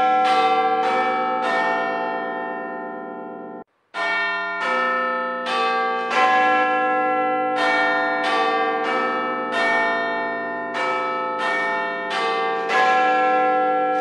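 Bells ringing a steady sequence of notes at different pitches, each struck and left to ring on. About four seconds in, the sound cuts out for a moment and then goes on.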